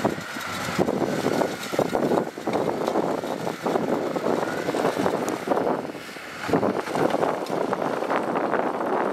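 Diesel engine of a small construction machine running under work, with uneven clattering noise that dips briefly about six seconds in.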